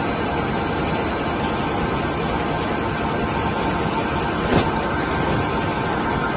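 CNC lathe running a turning cut: a steady mix of spindle and cutting noise, with one brief knock about four and a half seconds in.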